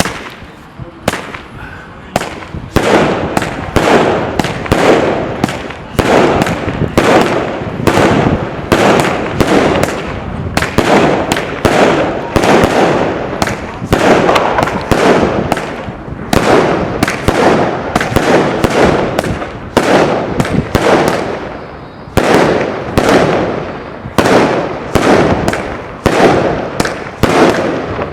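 Fireworks going off in a long, rapid series of sharp bangs, about two a second, each with a short echoing tail. The series builds up over the first few seconds and keeps going with only a brief dip about three quarters of the way through.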